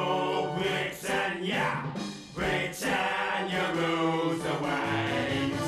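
Recorded song music with a choir-like group of voices singing.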